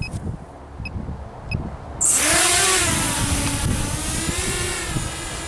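Walkera F210 racing quadcopter: two short electronic beeps, then about two seconds in its brushless motors and propellers spin up suddenly into a loud whine that rises and falls in pitch as the throttle changes during liftoff.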